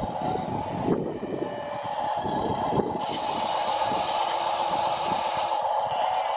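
Small electric motors of radio-controlled model trucks and an excavator whirring with a steady whine and a low clatter, with a loud hiss from about three seconds in until near the end.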